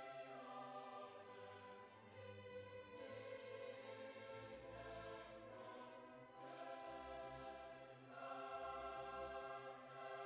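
Quiet background music of sustained chords that change every second or two.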